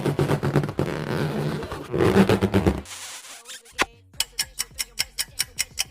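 Scraping, rubbing sound effect for about the first three seconds, standing in for the lips being scrubbed. About a second later comes a run of sharp clicks, about six a second.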